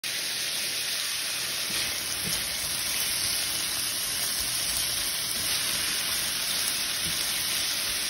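Beef, carrots and celery sizzling in a frying pan as they are stirred with a silicone spatula: a steady frying hiss with a few soft knocks of the spatula against the pan.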